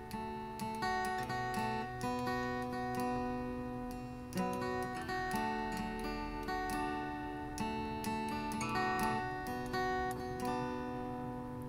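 Acoustic guitar playing an instrumental introduction, a string of picked notes and chords, each left to ring.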